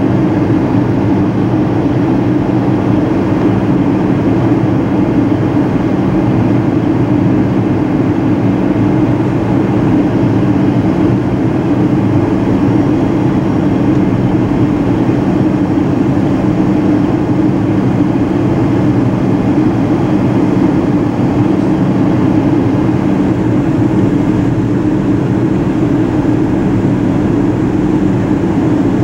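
Jet airliner cabin noise heard from a window seat: a steady drone of engines and rushing air, with a low even hum underneath.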